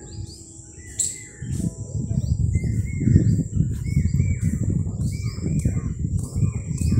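Small seeds crackling and sizzling in hot oil in a wok, the crackle growing louder after the first second or so. Birds chirp repeatedly in the background throughout.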